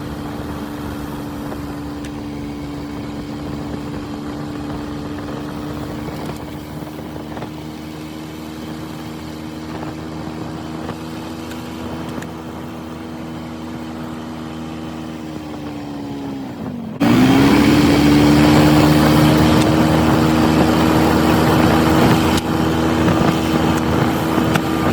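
Polaris Sportsman ATV's single-cylinder engine idling steadily after its oil change. About two-thirds of the way through, the pitch dips briefly and the sound then jumps louder and rougher before settling at a steady idle again.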